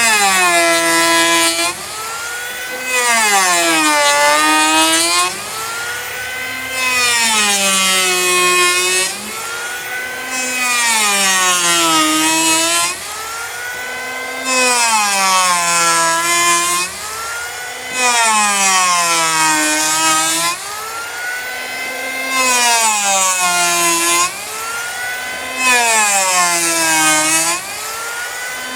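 Handheld electric power planer shaving a hickory slab in repeated passes, one about every three to four seconds. During each two-second cut the motor's whine sags in pitch under load and the blades throw a loud hiss of chips; between cuts the whine climbs back up.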